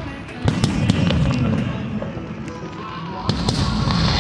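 Aerial fireworks shells bursting overhead: a run of sharp bangs and crackles over a low rumble, with loud reports about half a second in and again just past three seconds.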